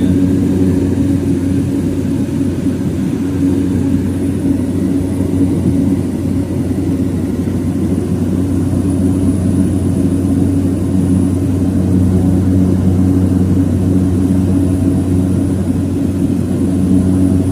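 Steady drone of a Cessna 208B Caravan's single turboprop engine and propeller, heard from inside the cabin, holding an even low hum.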